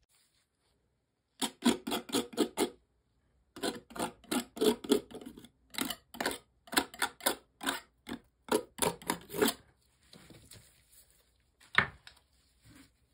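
Rapid, irregular tapping and clicking in quick runs of about four to six a second, starting about a second and a half in and stopping near ten seconds, followed by one louder knock near the end.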